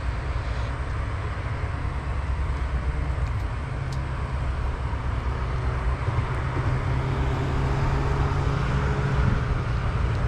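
Steady road traffic noise with a low engine hum that grows slightly louder and higher over the last few seconds, as a vehicle runs along the road.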